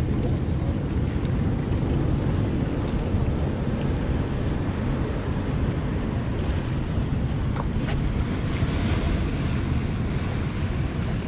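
Surf washing over and around coastal rocks, with wind buffeting the microphone.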